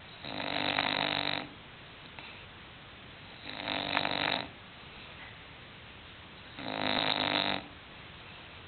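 English bulldog snoring in its sleep: three long snores, each about a second, coming about every three seconds.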